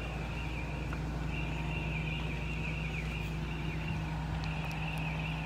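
A steady low mechanical hum with a faint high chirping band above it, even throughout.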